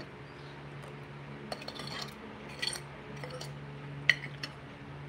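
A handful of light clinks of utensils against dishes, the sharpest about four seconds in, over the steady hum of an electric stand fan.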